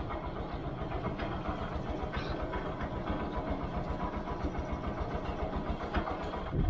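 Motorcycle-and-sidecar tricycle engine idling steadily, its quick even firing pulses running throughout, with a few faint clicks near the end.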